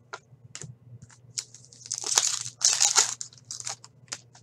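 A pack of Artifacts hockey cards being torn open by hand, its wrapper crinkling in two loud bursts near the middle, with scattered light clicks and rustles as the cards are handled.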